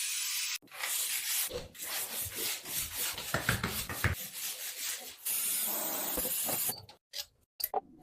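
Construction work sounds of scraping and rubbing on material, in short uneven strokes, broken by abrupt cuts near the start and near the end.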